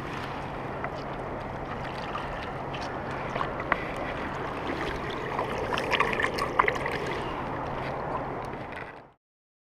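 Shallow lake water lapping and splashing close to the microphone, with scattered small splashes and a steady low hum underneath; it fades out near the end.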